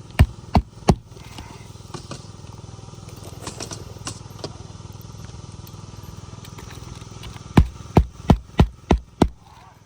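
Roofing hammer blows on an asphalt shingle roof: three quick strikes at the start, then six strikes about three a second near the end. A steady low rumble runs underneath.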